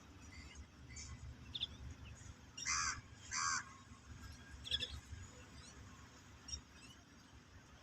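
Bird calls: two harsh, caw-like calls in quick succession near the middle, with a few short high chirps around them.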